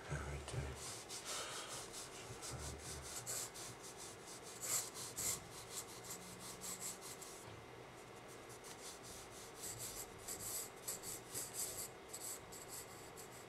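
Graphite pencil scratching across sketchpad paper in quick, repeated shading strokes. There is a short pause after about seven seconds before the strokes resume.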